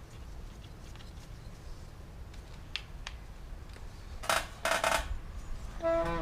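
Metal hand tools and engine parts clinking: a few faint clicks, then two loud metallic clatters about four and a half seconds in, and a short ringing note near the end.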